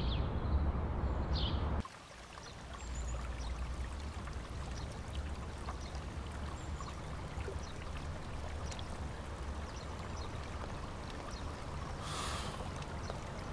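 Background music with a deep bass stops abruptly about two seconds in. It gives way to a steady outdoor ambience of rushing, running-water-like noise with faint high chirps, and a short louder hiss comes near the end.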